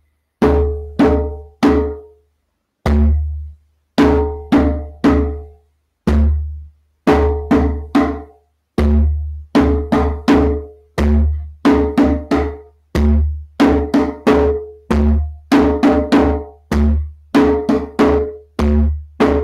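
Djembe played with bare hands in the roll pattern: a deep bass stroke followed by three ringing tone strokes, repeating about every two seconds. The ghost notes between them are silent lifts of the hand that don't strike the drum.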